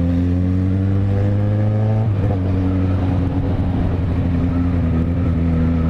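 Yamaha XJ6 motorcycle's inline-four engine under way, its pitch rising slowly as it accelerates, then dropping about two seconds in at a gear change and running steadily at lower revs.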